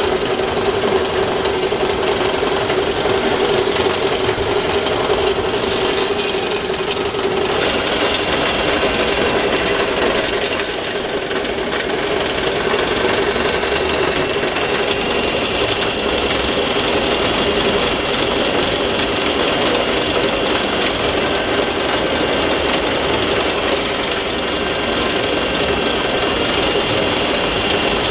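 Hydraulic pump and motors of a Lesu ET30H 1/14-scale RC wheeled excavator running steadily as it digs and swings. Its whine shifts pitch about seven seconds in.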